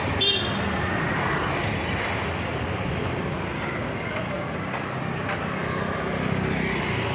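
Street traffic: motor scooters, motorbikes and cars running past in a steady wash of road noise, with a short high beep about a third of a second in.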